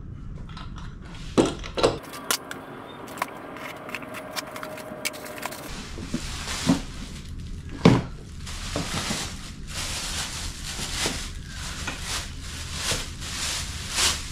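Unpacking by hand on a wooden workbench: items knock and clack as they are set down and handled, the loudest knock about eight seconds in, then plastic wrapping crinkles and rustles as it is pulled off the parts.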